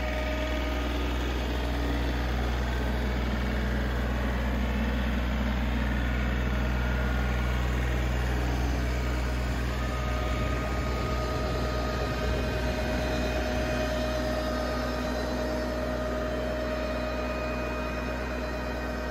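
John Deere 3032E compact tractor's diesel engine running steadily, driving a 15 kW Winco PTO generator through its PTO driveline: a constant low drone with a faint steady hum above it.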